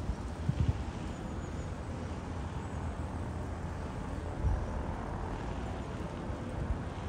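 Steady outdoor town ambience with a low rumble, and a couple of low thumps about half a second and four and a half seconds in.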